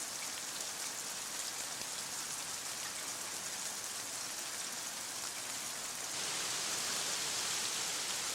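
Heavy rain falling steadily, a little louder from about six seconds in.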